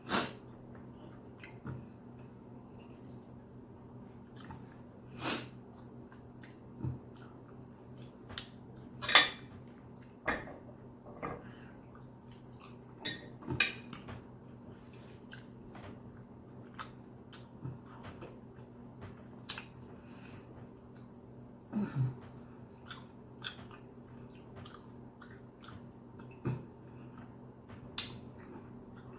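A toothless person chewing ribeye steak with bare gums, with scattered short clicks and taps, the loudest about nine seconds in, over a faint steady low hum.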